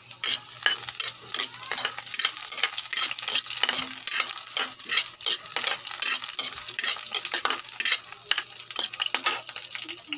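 Minced garlic sizzling in hot oil in a wok, with a metal ladle scraping and knocking against the wok over and over as it is stirred.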